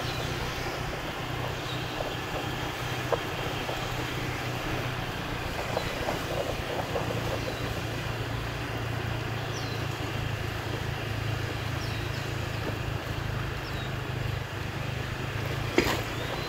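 Outdoor street ambience: a steady low rumble of distant traffic, with a few faint bird chirps and a single sharp knock near the end.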